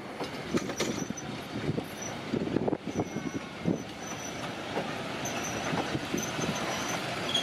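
Railway passenger carriages rolling past, their wheels knocking irregularly over the rail joints. A thin, high wheel squeal comes and goes, mostly in the second half.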